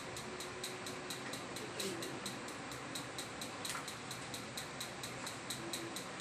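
Faint rapid, even ticking, about four ticks a second, over a steady low hiss of room tone.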